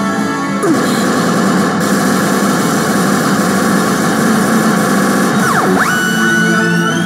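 Steady loud din of a pachinko parlor, with a pachinko machine's electronic sound effects on top: a falling swoop just under a second in and several rising swoops with held tones near the end.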